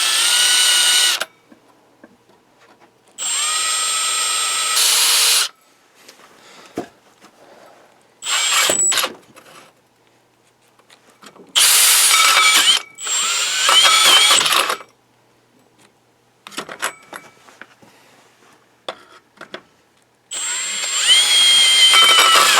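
Makita brushless drill driving a 3-inch hole saw into metal in about six short trigger bursts. Each burst spins up with a rising whine, runs one to three seconds and stops, with small clicks and knocks in between. The drill is struggling with the cut and cannot get through it.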